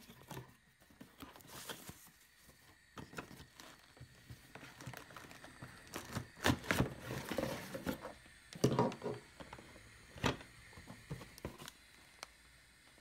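Kitchen handling sounds: scattered clicks, light knocks and brief rustling of packaging, with a few sharper knocks in the middle.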